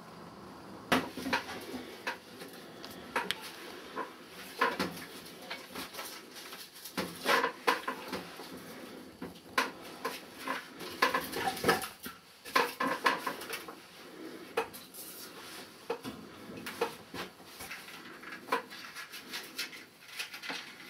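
Firewood being loaded into a wood-burning sauna stove: irregular clunks and clatters of logs knocking against the metal firebox and each other.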